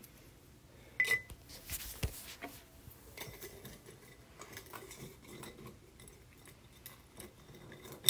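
Quiet handling noises: a sharp click about a second in and a knock about two seconds in, then scattered faint light taps and clinks as small objects are moved about.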